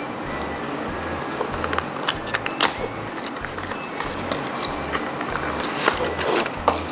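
Small cardboard box being opened by hand, its flap and the plastic tray inside giving scattered sharp clicks and rustles, over background music with a steady low beat.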